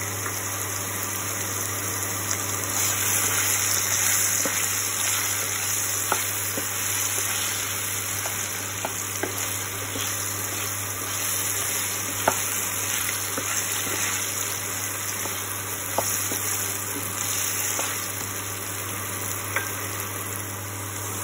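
Cubed potatoes sizzling in hot oil in a kadai, stirred with a spatula that now and then knocks against the pan.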